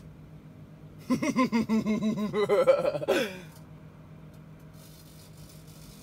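A man laughing in a quick run of pulses for about two and a half seconds, starting about a second in and climbing in pitch toward the end, over the steady low hum of a running microwave oven.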